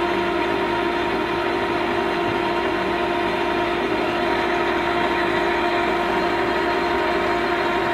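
Leblond engine lathe running with its chuck and spindle turning and no cut being taken: a steady machine hum with a few constant tones.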